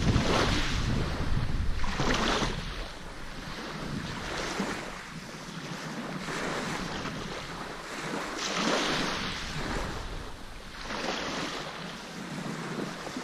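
Small waves washing up on a gravelly shore, swelling and easing about every two seconds. Wind rumbles on the microphone in the first few seconds.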